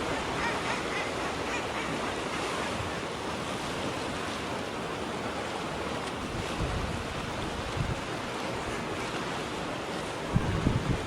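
Sea waves breaking and washing on the shore in a steady rush, with wind buffeting the microphone near the end.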